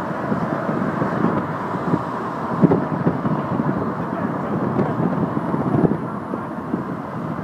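Steady road and traffic noise from a car driving along a busy city street, with a few small knocks.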